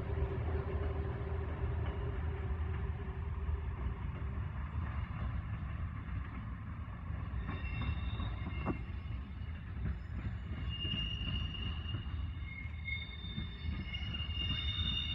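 Diesel train moving slowly, a steady low rumble with an engine note for the first few seconds; from about halfway, high-pitched wheel squeal joins in as the wheels grind round the curved track.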